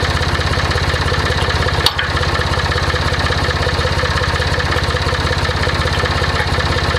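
An engine idling steadily with an even low pulse, and a single sharp metallic click about two seconds in.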